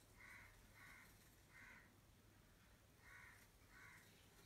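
Faint crow cawing: three caws in a row, then two more about a second and a half later.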